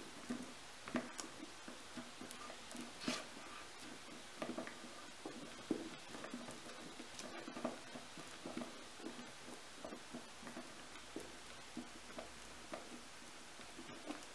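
Faint, irregular rustling and light taps of paper being smoothed and pressed down by hand onto glued cardboard.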